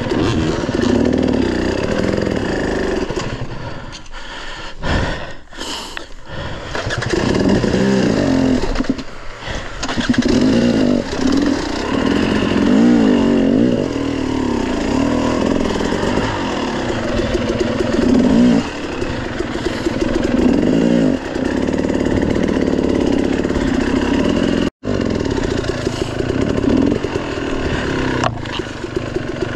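Dirt bike engine revving up and down over and over under changing throttle. The revs drop low for a couple of seconds about four seconds in.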